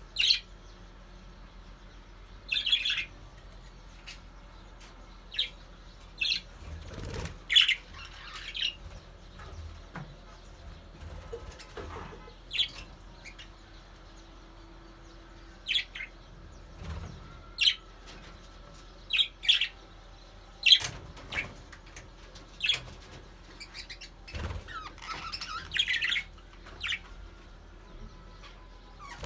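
Budgerigars chirping in short, sharp, high calls scattered irregularly, with a few soft thumps among them.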